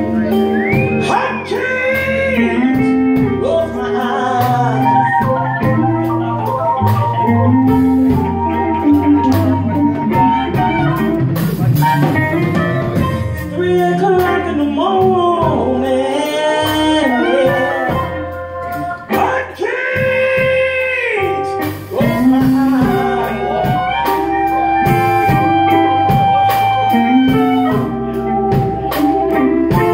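Live blues band playing: electric guitar, bass and drums with a steady beat, and a singer's voice carrying long wavering notes at times.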